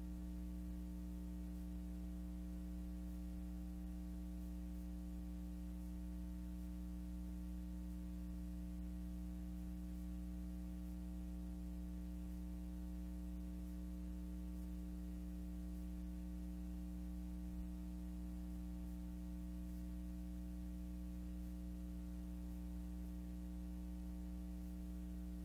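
Steady electrical mains hum with a faint hiss, unchanging throughout: the soundtrack of a silent film with no recorded sound.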